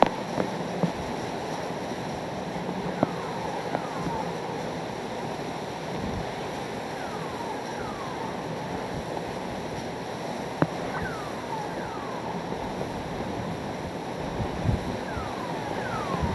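Hurricane eyewall wind and driving rain making a steady rushing roar. About every four seconds a pair of short squeaks glides down in pitch, and a few sharp knocks break through, the loudest about ten and a half seconds in.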